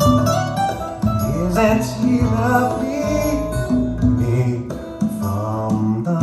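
Recorded pop-soul music playing with no lyrics: a strong bass line and chords under a lead melody that bends in pitch near the middle.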